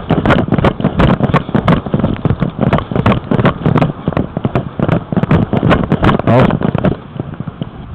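Handling and wind noise on a head-mounted camera microphone while walking: rapid, irregular crackling knocks over a low buffeting rumble, which stop abruptly about seven seconds in.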